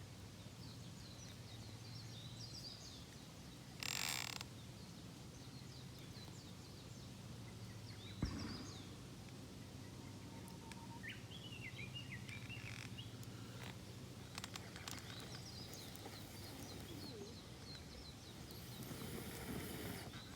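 Small birds chirping and twittering over a steady low hum, with a short burst of hiss about four seconds in and a single knock about eight seconds in.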